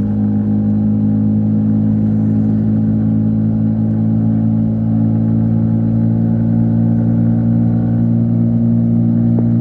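Yamaha MT-15 V3's 155 cc single-cylinder engine and exhaust running at a steady cruising speed on the highway, holding one even pitch.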